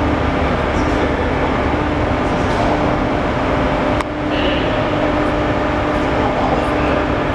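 Steady machinery hum and rumble filling a large industrial hall, with a constant low tone, during crane handling of a heavy detector module. A brief click and a short dip in level about four seconds in.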